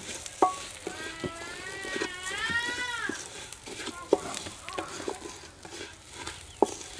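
Wooden spatula stirring and scraping fennel seeds roasting in butter in a metal pan, with a soft sizzle and sharp taps of the spatula against the pan. An animal gives a long wavering call from about one to three seconds in.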